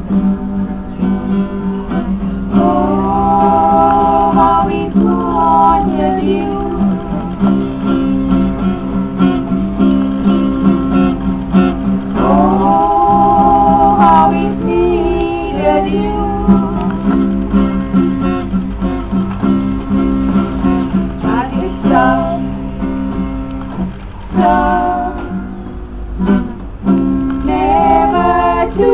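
Two acoustic guitars played together, accompanying women singing a song in unison and harmony.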